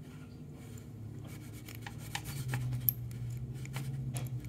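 A key sliding into the keyway of a brass lock cylinder, making a run of small metallic clicks and scrapes, over a steady low hum that grows louder about halfway through.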